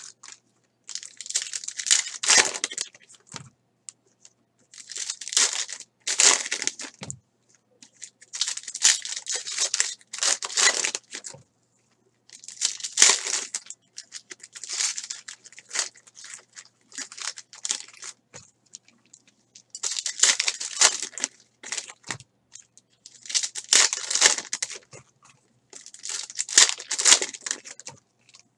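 Foil trading-card pack wrappers being torn open and crinkled by hand, in repeated crackling bursts a second or two long with short pauses between them.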